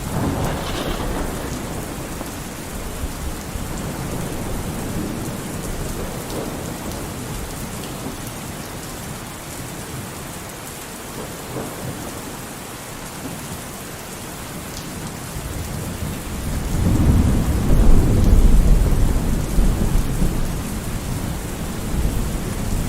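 Thunderstorm: steady rain falling, with thunder rumbling. A long, low roll of thunder swells about two-thirds of the way in, is loudest a couple of seconds later, and fades out over several seconds.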